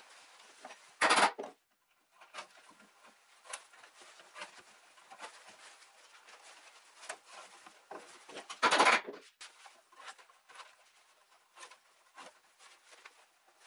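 Hemp cord being worked by hand around steel upholstery coil springs: scattered rustling and small clicks as the cord rubs over the coils and is knotted, with two loud short swishes, about a second in and again about two-thirds through, as a length of cord is pulled through quickly.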